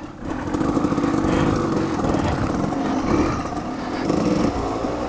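Off-road motorcycle engine running under way, its note rising and falling with the throttle.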